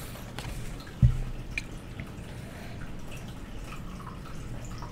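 Tarot cards being handled on a table between readings: one soft thump about a second in, then a few faint light clicks.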